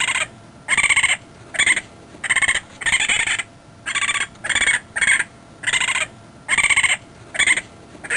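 Raccoon screaming in a rapid series of about a dozen short, harsh, raspy calls, one roughly every three-quarters of a second.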